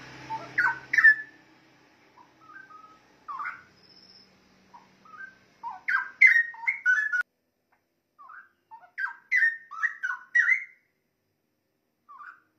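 Straw-headed bulbul (cucak rowo) singing: short phrases of quick, liquid whistled notes that slide up and down, separated by pauses of about a second or more. The longest phrases come about six seconds in and again about nine seconds in.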